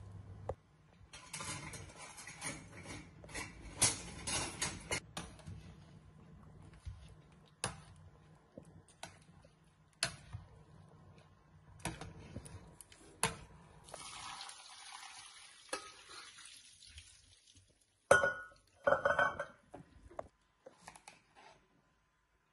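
Spaghetti being stirred in a stainless steel pot of boiling water: a metal utensil clinks and scrapes against the pot, with a few louder knocks near the end.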